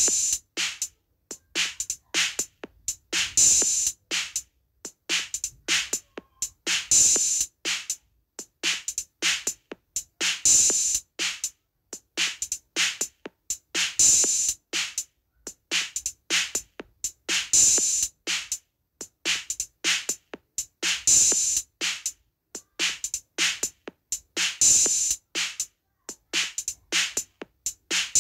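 Looped drum rhythm for halay dancing: quick strokes about three a second with short silent gaps between them, the pattern repeating about every three and a half seconds and opening each time with a bright accented hit.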